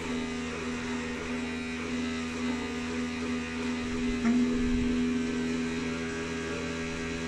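Toilet plumbing droning with a steady, foghorn-like hum as the toilet flushes and refills: one low tone with overtones. A little over four seconds in it steps up slightly in pitch and grows louder.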